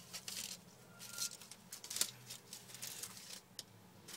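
Scattered light scratching and rustling of newspaper under a savannah monitor's claws and body as it moves about, with a sharper click about two seconds in.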